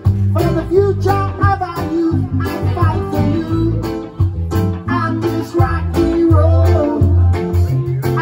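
Live band playing music, with a steady bass line under guitar and a saxophone melody.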